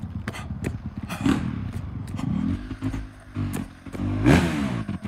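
A vehicle driving past on the street, its noise swelling and fading, loudest near the end, over scattered light clicks.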